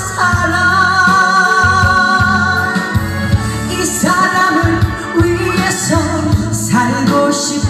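A pop song played over loudspeakers with a backing track: a melody in long held notes over a steady bass line.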